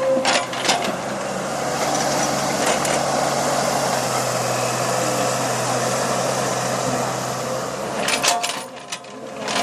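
Small backhoe's engine running steadily, with a few sharp knocks just after the start and a cluster of them about eight seconds in.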